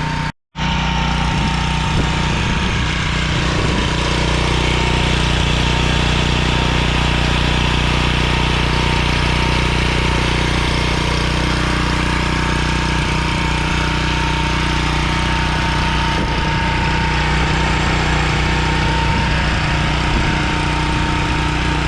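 Gasoline pressure washer's small engine running steadily at constant speed, with a broad hiss over the engine note; the sound drops out briefly less than a second in.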